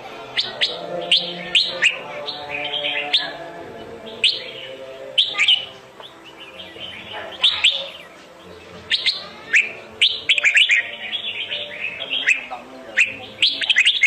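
Red-whiskered bulbuls calling and singing: repeated quick chirps, each sharply falling in pitch, coming in bursts throughout and busiest about two-thirds of the way through.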